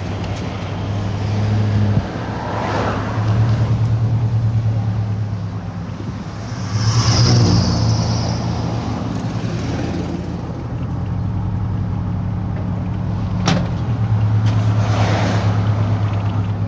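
Car engine hum and road noise heard from inside a slowly moving car, swelling louder three times, with a single sharp click about thirteen seconds in.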